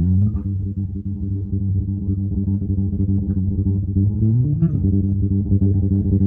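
Bass guitar playing a riff, starting abruptly, with notes sliding up in pitch about two-thirds of the way through.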